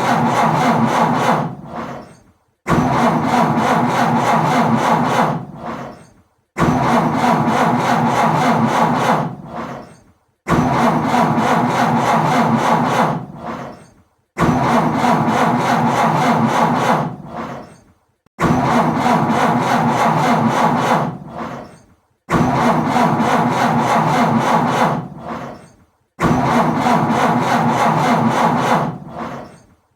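A car's starter cranking the engine, which fails to catch. About eight short cranking attempts repeat at an even pace, each starting abruptly and tailing off, with a brief pause between them.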